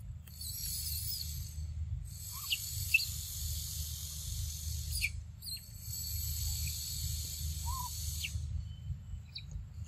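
Forest ambience: a high, buzzing insect chorus that starts and stops in stretches of a few seconds, over a steady low rumble. A few short chirps and a couple of sharp clicks sound in between.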